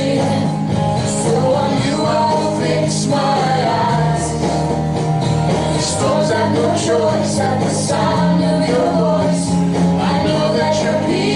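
A rock-style worship song: voices singing over guitar and a steady bass line.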